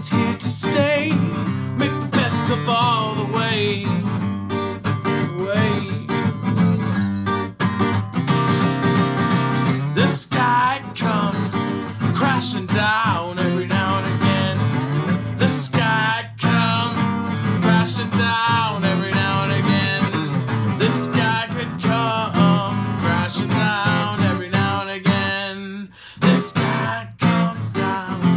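A man singing to his own strummed steel-string acoustic guitar, with a brief drop in the playing near the end.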